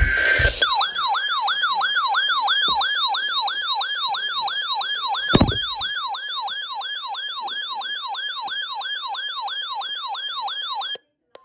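An electronic yelp siren sounds as an emergency alert attention signal, its pitch sweeping up and down about three times a second. It is preceded by the last fraction of a second of the alert's data-burst header tones and cuts off abruptly near the end. A single thump sounds about halfway through.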